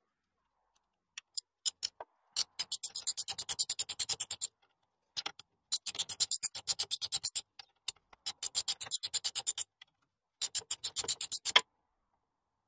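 Socket ratchet clicking in four quick runs of about ten clicks a second, with a few single clicks first, as it turns the bolts of the bottom swivel pin on a Land Rover Series 2 front axle swivel housing.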